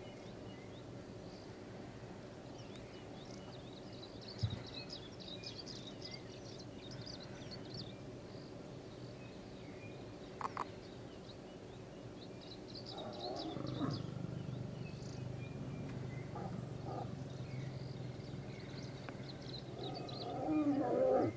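Lions growling while mating. A low growl starts about two-thirds of the way through and builds to a loud snarl near the end.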